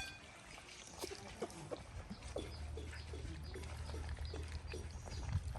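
Puppies eating, a scatter of small chewing and lapping clicks, with a low steady hum starting about two seconds in.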